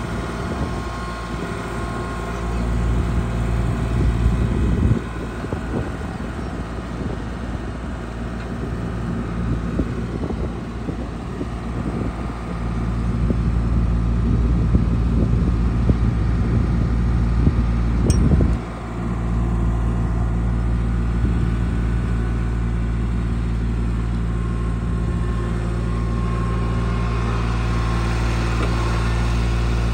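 Kubota L3901 compact tractor's three-cylinder diesel engine running at a steady speed. The sound drops briefly about eighteen seconds in, then carries on.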